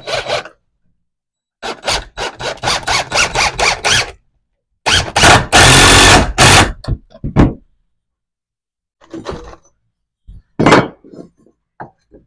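Power drill driving deck screws into truss lumber. It runs in a string of quick short bursts, then one longer, louder run about five seconds in, followed by a few lighter knocks of wood near the end.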